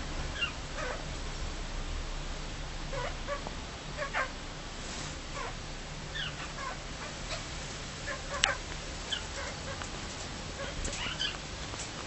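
Cockatiel giving short, soft chirps and squeaks every second or two while being petted, with one louder, sharper note about eight seconds in.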